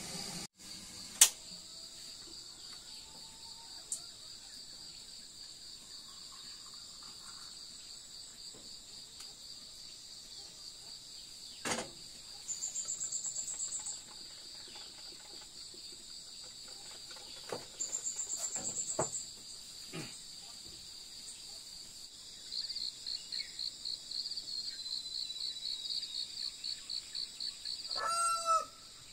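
Insects chirring steadily at a high pitch, swelling into louder pulsing bursts a few times. A sharp click comes about a second in, with a few fainter knocks later. A rooster crows briefly near the end.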